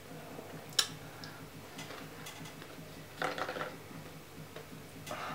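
A few light clicks and knocks, one sharp click about a second in, with faint handling noise.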